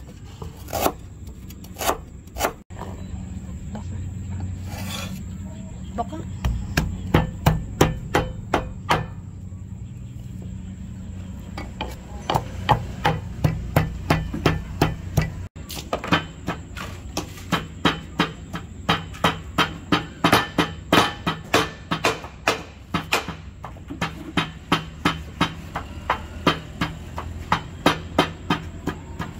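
A wooden pestle pounding chopped spring onions in a mortar, a steady run of thuds about two to three a second. It is mixed with knife chops on a wooden cutting board.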